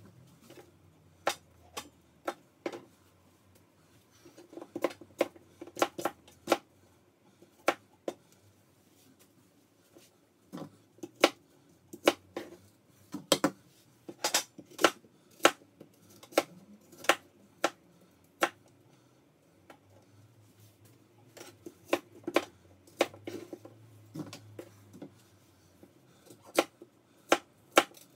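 Kitchen knife cutting apples on a cutting board: sharp, irregular knocks of the blade striking the board, coming in clusters.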